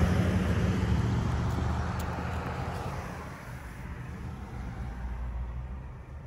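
Car engine and road noise heard from inside the cabin: a steady low hum that fades gradually.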